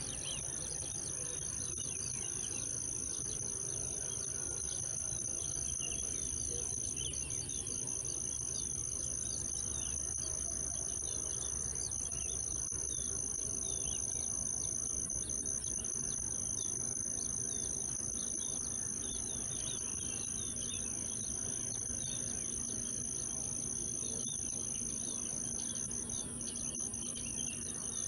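Steady chorus of insects, two high continuous buzzing tones, with scattered bird chirps over it. A faint low rumble runs underneath, with a low hum joining about two-thirds of the way in.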